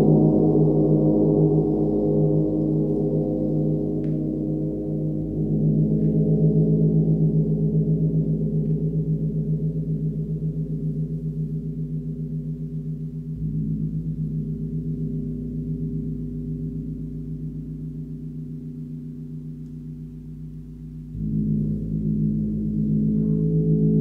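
A large hanging gong tuned to G# (about 52 Hz), played gently with a soft mallet: a deep, many-toned shimmering hum. The hum slowly fades and swells again with each soft stroke, about every eight seconds, three times; the swell near the end is the strongest.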